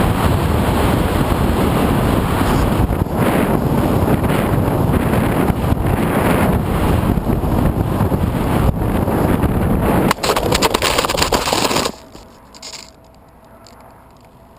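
Wind rushing over the onboard microphone of an FPV aircraft in flight, a loud steady roar that turns choppy about ten seconds in and then cuts off suddenly, leaving only a faint background.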